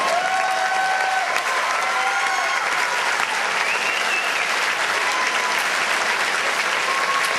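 Large audience applauding steadily, with voices cheering and whooping over the clapping.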